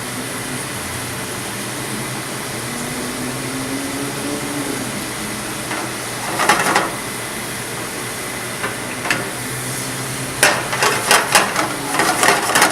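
A chardonnay wine sauce simmering and sizzling in a pan as it reduces almost dry. A utensil scrapes against the pan briefly about six seconds in, then scrapes and clacks repeatedly in the last couple of seconds as it is dragged through the sauce.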